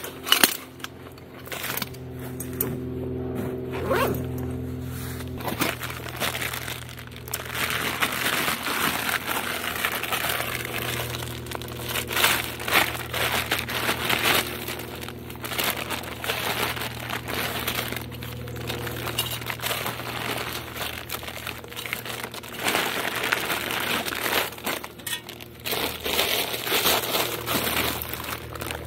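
Background music with steady held notes over the crinkling and rustling of nylon stuff sacks being pulled from a backpack and opened.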